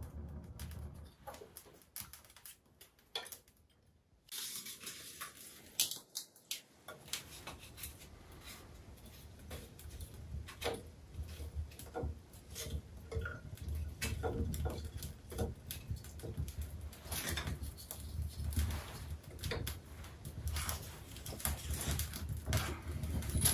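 Small wood fire crackling and popping in an open hearth grate as split kindling is handled and laid on, with irregular sharp clicks over a low rumble that grows as the fire takes. A brief rising whistle comes about five seconds in.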